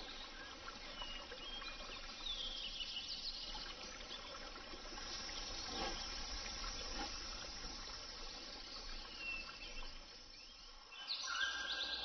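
Faint forest ambience with scattered short, high chirps, and a louder run of calls about a second before the end.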